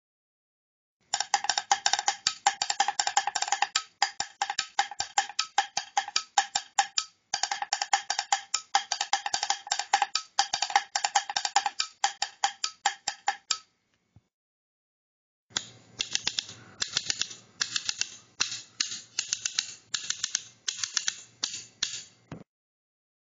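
A wooden stool knocking and clicking in a quick, rapid run for about twelve seconds. After a short silence, a pair of pliers clicks in a similar rapid run.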